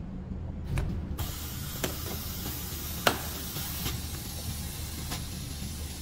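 Vacuum perfume filling machine running: a steady hiss of air that starts about a second in, over a low hum, with several sharp clicks.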